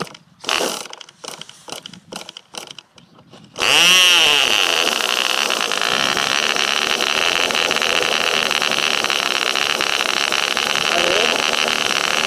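Cox Babe Bee 0.8 cc (.049) two-stroke glow engine being hand-started with its glow plug clip on: a few short sharp clicks, then about three and a half seconds in it catches, climbs quickly in pitch and runs on steadily with a loud, high-pitched buzz.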